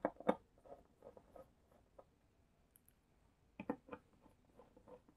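Small clicks, taps and light scraping from parts of an LED TV being handled during reassembly: two sharp clicks at the start, scattered light ticks, then another short cluster of clicks about three and a half seconds in.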